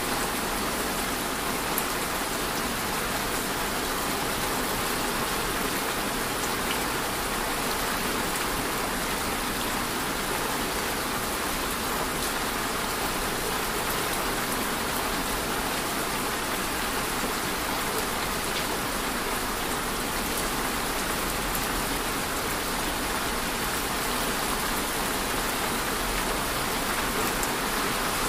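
Steady rain falling: an even, unbroken hiss of many drops, with faint ticks of single drops now and then.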